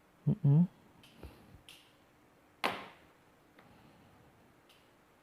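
Light clicks and one sharp plastic snap of the laptop's bottom case being pried loose, the snap about two and a half seconds in. The loudest sound is a brief grunt near the start.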